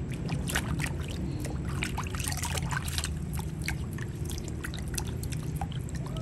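Water splashing and lapping in a plastic tub as a baby monkey is paddled and scrubbed through it by hand: many small quick splashes and drips, over a steady low hum.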